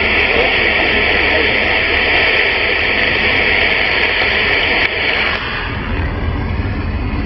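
CB radio receiver on 27 MHz upper sideband hissing with static, a distant station too weak to make out buried in the noise. The hiss falls away about five seconds in, leaving a low rumble underneath.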